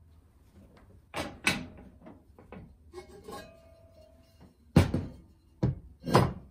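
Knocks and clanks of a heavy black pot and its lid being handled on a stovetop: the lid is lifted off and set down. A series of sharp knocks, two close together about a second in and three louder ones in the second half.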